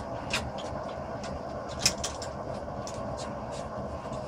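Steady rumbling background noise with a scatter of sharp metal clicks and ticks, the loudest about two seconds in, as a red-hot iron bar is twisted in a bench vise with a wrench.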